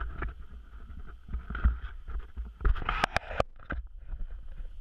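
Water splashing and sloshing at a small boat's stern over a steady low rumble, with a quick run of sharp clicks or knocks about three seconds in.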